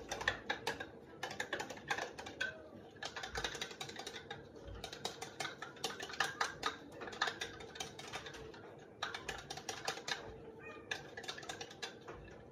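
Metal spoon clinking and scraping against a small glass bowl in quick, irregular clicks as a liquid is stirred and scooped out.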